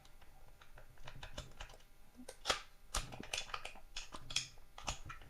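Light, scattered clicks and scrapes of a pistol slide being handled and worked on a Glock 19 frame, in an attempt to fit an aftermarket slide that turns out not to fit.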